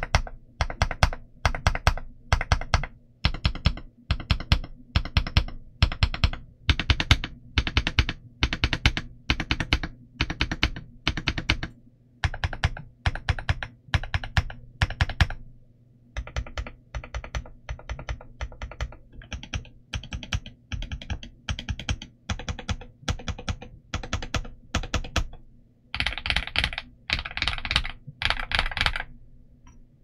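Mechanical keyboard fitted with Ajazz Avocado linear switches, an FR4 plate and doubleshot PBT Cherry-profile keycaps being typed on. Clusters of keystrokes come about twice a second, then a fast, unbroken run of typing near the end.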